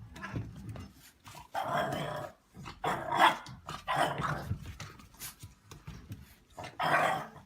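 A dog growling and giving rough barks in several short bursts.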